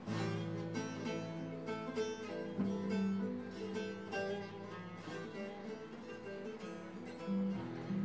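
Bağlama (long-necked Turkish saz) playing a folk tune: quick plucked notes over steadily ringing lower tones.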